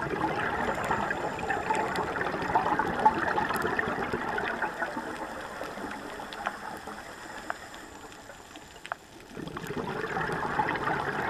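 Scuba diver's exhaled bubbles rushing out of the regulator, heard through a GoPro's underwater housing: a long burst that fades away, then a fresh burst after a short lull near the end. A few faint clicks sound through it.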